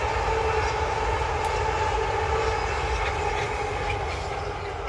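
Container freight train's wagons rolling past: a steady rumble of wheels on rail with a steady ringing tone over it, slowly fading near the end as the train draws away.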